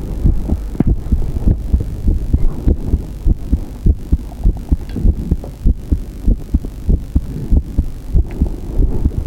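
A person's heartbeat, picked up close to the chest: a steady run of low, repeated thuds.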